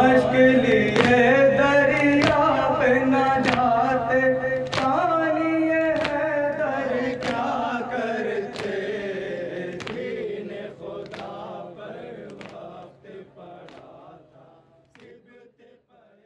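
A lead male voice and a chorus of men chanting a noha, a Shia lament, over an even beat of chest-beating matam about every 0.7 seconds. The whole sound fades out over the second half.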